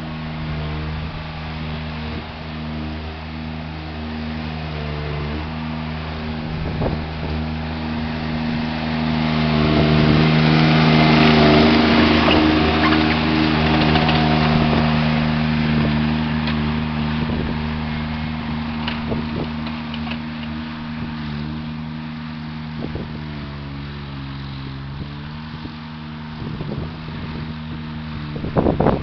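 Mini skid steer's engine running steadily while it pushes snow with a bucket, getting louder with a rushing hiss about a third of the way in. Its pitch sags briefly later on, and a few clunks come near the end.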